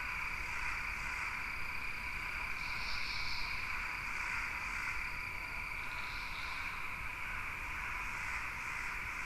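Steady chorus of frogs and insects: a continuous drone with a thin high steady trill and soft swells coming and going.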